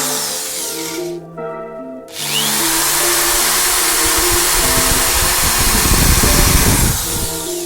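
A power tool running over background music. It stops for about a second near the start, then starts again and runs steadily until shortly before the end.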